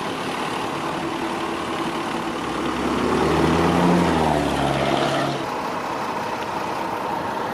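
Vehicle engines running steadily, one of them louder and nearer from about three to five seconds in, then dropping away.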